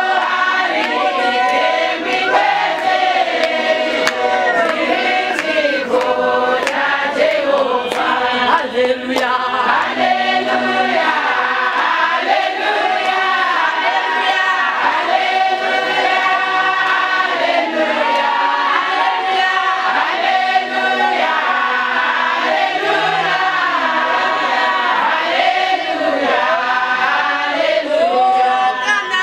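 A group of women singing a gospel song together, one woman leading into a microphone while the others sing with her. The singing carries on without a break.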